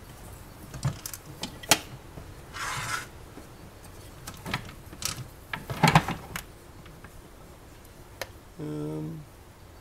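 Scattered clicks and knocks of a Sunbeam pie maker's parts being handled during disassembly, with a short scrape about three seconds in and a cluster of louder knocks about six seconds in. A brief low hum comes near the end.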